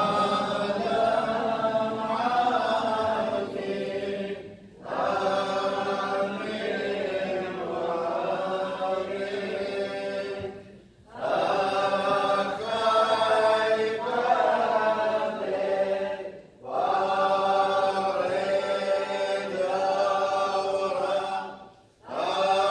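Choir singing Assyrian Church of the East liturgical chant in Syriac: four long unaccompanied phrases, each followed by a short pause for breath.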